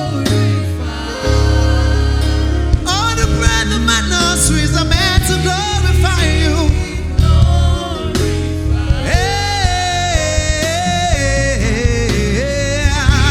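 Gospel worship music with a sung melody over a steady bass, the singer's voice gliding and wavering in long held notes, growing fuller about nine seconds in.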